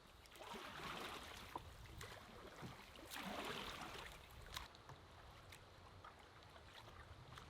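Faint canoe paddle strokes in the water: two soft swishes about three seconds apart, with a few light clicks.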